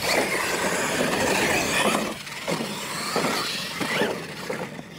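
A pair of Losi LMT electric R/C monster trucks launching and accelerating away on dirt: high drivetrain whine and tyre noise, loudest for the first two seconds, then fading as they pull away.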